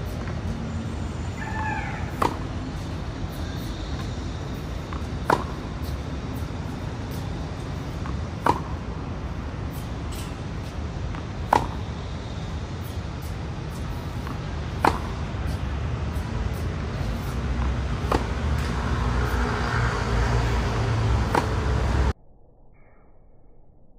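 Tennis ball struck with a racket on one-handed backhands, a sharp pock about every three seconds, over steady outdoor background noise. A short animal call sounds about a second and a half in, and the background cuts off suddenly near the end.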